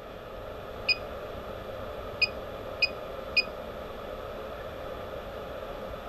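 Four short electronic key beeps from the FeelTech FY3200S function generator, one for each button press that steps its output frequency up by 1 MHz. The first comes about a second in, then three follow just over half a second apart.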